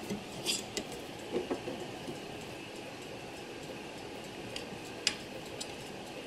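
Faint, irregular clicks and taps of small metal tooling being handled on a clockmaker's bushing press as the reamer is taken out, with a sharper click about five seconds in.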